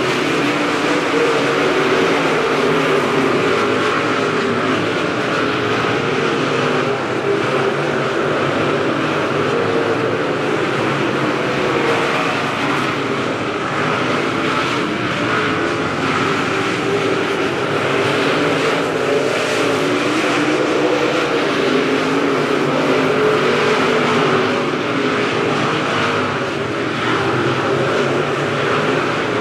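Several dirt late model race cars with big V8 engines running at speed on track: a steady, loud engine drone that swells and fades as the cars pass.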